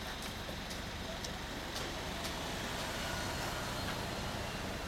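Honda CB1300 Super Four's inline-four engine idling steadily through a Nojima FASARM full aftermarket exhaust system.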